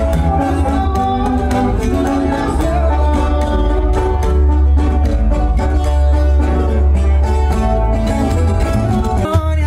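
Regional Mexican band music in an instrumental passage: plucked and strummed guitars over a heavy, steady bass line, with no singing. The music breaks off abruptly near the end.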